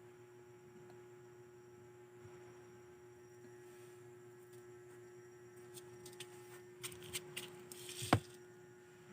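A steady hum runs throughout, with a few sharp clicks and taps in the second half, the loudest about eight seconds in.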